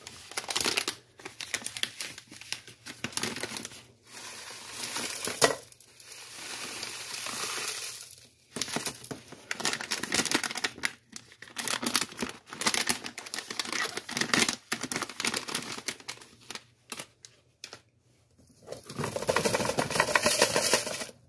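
Paydirt bag crinkling while dry gravel and sand pour from it into a plastic classifier. Near the end the classifier is shaken, rocks rattling and fines sifting through its screen.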